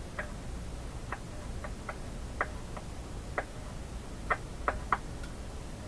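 Irregular light clicks, about a dozen, of metal test-probe tips tapping against the tube socket terminals and chassis of a vintage tube radio, over a steady low hum.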